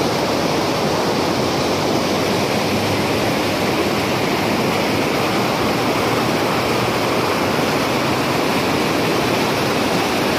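Shallow river rushing over and between boulders in small rapids: a steady, unbroken rush of water.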